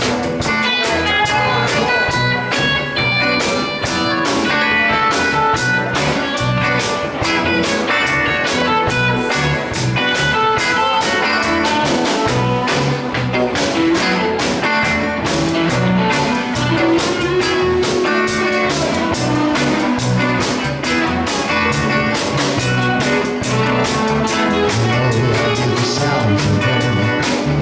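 Instrumental song introduction: guitar with a drum kit keeping a steady beat.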